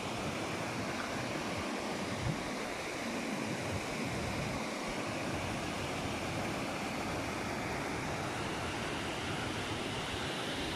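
Fast-flowing stream rushing over rocks: a steady rush of white water.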